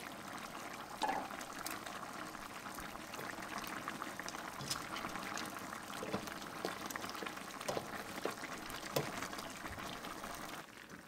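Spicy Korean chicken stew (dakbokkeumtang) simmering and bubbling in a stainless steel pan, with a steady bubbling hiss and a few sharp clicks, the loudest about a second in. In the second half it is stirred with a utensil to keep it from sticking to the bottom of the pan.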